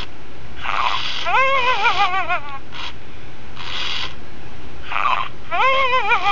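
Two original 1998 Furby toys chattering in high, warbling electronic voices: one warbling phrase about a second in and another near the end, with short hissy bursts between.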